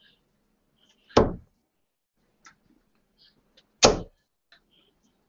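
Two darts striking a bristle dartboard, two sharp thuds about two and a half seconds apart.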